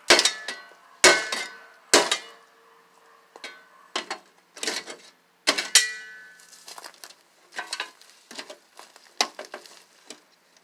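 Metal clanking and rattling from the old microwave's metal parts being struck and worked at. There are three sharp, ringing clanks in the first two seconds, two more around five to six seconds in, then lighter rattles.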